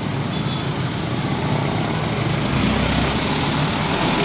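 Road traffic passing close by on a wet road, with a steady hiss of tyres and rain. A Mitsubishi Canter light truck's diesel engine runs alongside, its low rumble growing louder about halfway through.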